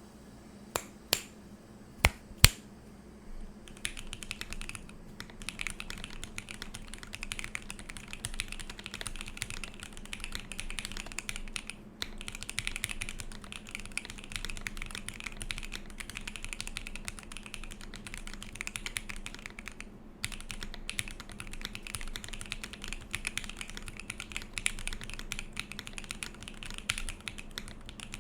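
Mechanical keyboard typing on a gasket-mounted ai03 Polaris with a polycarbonate plate, lubed and filmed Alpaca linear switches and CRP JiPink keycaps. It starts with four loud single clicks, then runs into steady, fast continuous typing from about four seconds in, with two short breaks.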